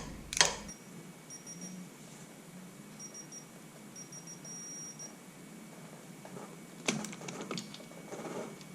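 A few faint, short high-pitched beeps, then a quick run of sharp metallic clicks about seven seconds in, with a few softer ones after: a torque wrench being worked on small bolts at 4 foot-pounds.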